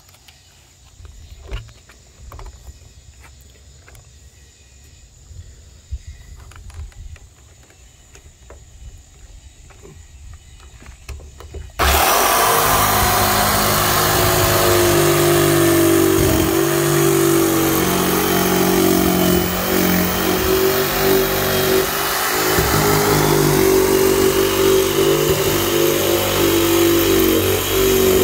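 A few light knocks and handling sounds, then about twelve seconds in a corded power saw starts abruptly and runs loud and steady as it cuts into the top of a 55-gallon plastic drum.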